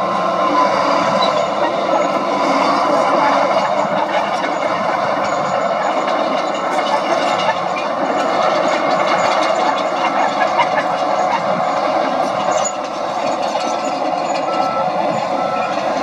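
Diesel engine of a Komatsu D60P crawler bulldozer running steadily under load as it pushes rock and soil with its blade.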